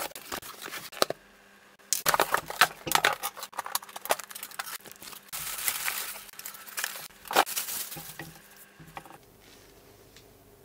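Unboxing noise: a cardboard box being torn open and plastic wrapping crinkling, with scattered knocks and clinks as the case and tool are handled. The handling goes quieter about nine seconds in.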